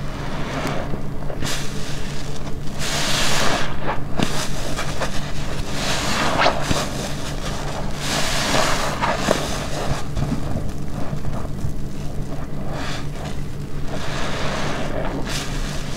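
A black car wash sponge full of shampoo suds being squeezed and released over and over, giving wet squelching swells every second or two, over a steady low hum.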